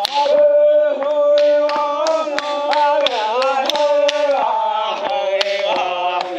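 A group of men singing a chant together, holding long notes and moving between pitches in steps, with sharp percussive hits scattered through the singing.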